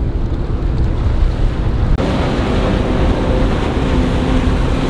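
Wind buffeting the microphone over breaking surf, with a motorboat engine running steadily from about two seconds in.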